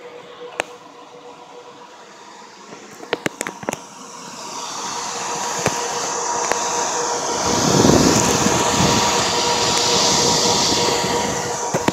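Tower servers' cooling fans running: a steady whirr with a constant hum. It swells to a much louder rush of air from about four seconds in and drops back near the end. There are a few light handling clicks in the first four seconds.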